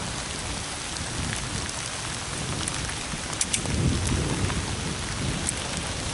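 Steady heavy rain hissing over a low rumble, with a few sharp taps of drops striking close by, near the middle and later on.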